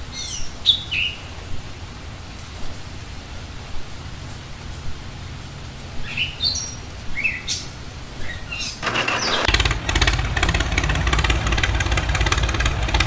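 Birds chirping in short gliding calls, then about nine seconds in a small electric motor starts and runs steadily with a dense buzz: the homemade miniature toy tractor's motor driving it over sand and gravel.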